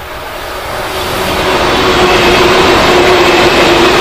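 SBB RABDe 500 ICN tilting electric multiple unit passing close at speed. The rush of wheels on rail grows louder over the first two seconds, then holds steady, with a steady hum and a fainter high whine running through it.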